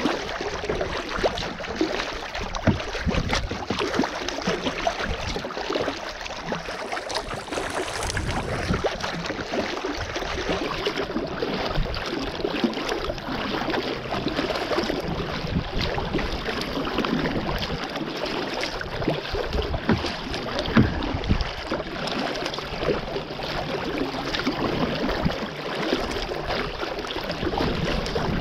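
Kayak paddle blades dipping and splashing in choppy sea water, with water sloshing against the plastic hull; a steady, noisy wash.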